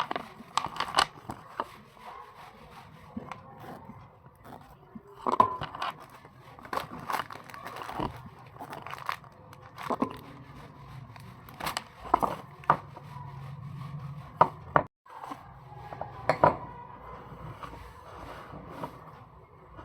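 Packaging and small craft items being handled during unboxing: crinkling and rustling, with irregular clicks and taps.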